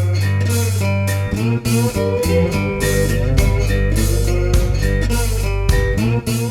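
Background music: a bluesy guitar tune with bass and a steady beat.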